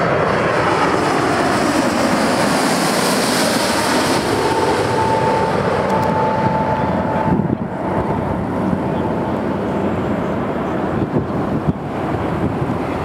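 Airbus A330-200 with Rolls-Royce Trent 700 turbofans passing low overhead on final approach: loud jet noise with an engine whine that falls in pitch as it goes by. About seven and a half seconds in the sound drops suddenly to a quieter, steadier jet noise as the airliner descends toward touchdown.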